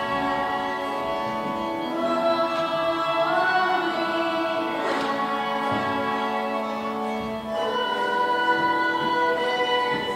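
Live concert music: a choir singing held, slowly changing chords with instrumental accompaniment.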